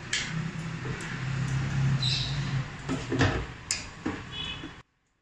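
A stainless-steel mixer-grinder jar and its plastic lid being handled and fitted onto the motor base: a string of clunks and clicks over a low steady hum. The sound cuts to silence near the end.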